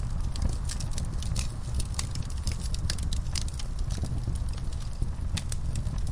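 Wood fire burning in a fireplace: a low steady rumble of flame with frequent irregular crackles and pops.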